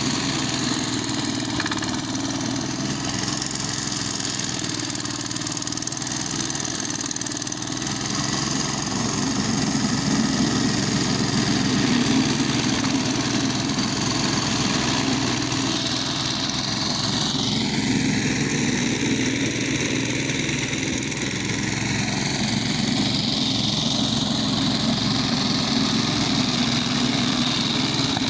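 Petrol engine of a walk-behind push lawn mower running steadily, with a shift in its pitch a little past halfway.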